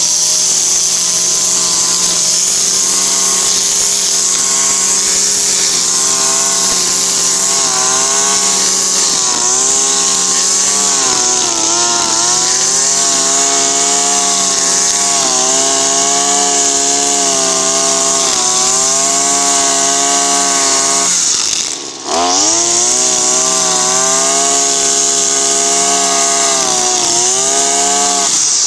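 Makita EM3400U two-stroke brushcutter running at high revs with a nylon line head cutting grass, the engine pitch sagging and recovering now and then as the line works through the grass. The sound breaks off for an instant about three-quarters of the way in.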